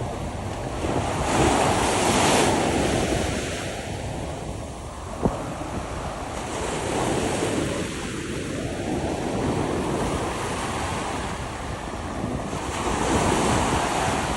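Ocean surf breaking on a beach, swelling up and washing in three times, with wind buffeting the microphone. One sharp click about five seconds in.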